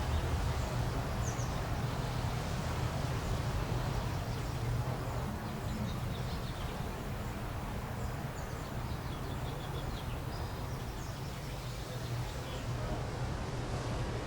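Outdoor ambience: a steady low hum under an even background hiss, with faint short high chirps from birds or insects scattered throughout.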